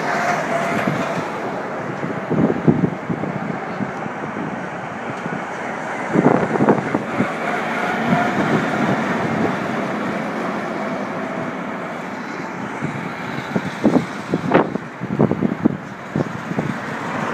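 Russian military trucks driving past at close range, with a steady engine and tyre rumble. Short, louder bursts of noise break in a couple of times early on and again in a cluster near the end.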